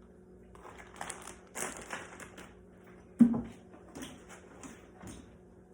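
Kitchen handling noises during food prep: a string of short rustles and crackles, with one sharp knock about three seconds in.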